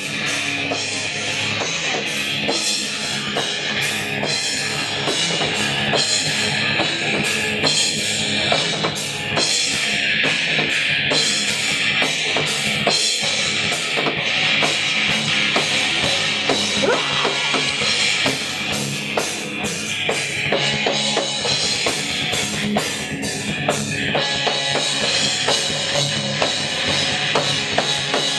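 Rock band playing: electric guitar over a drum kit, with busy, steady drumming and no break.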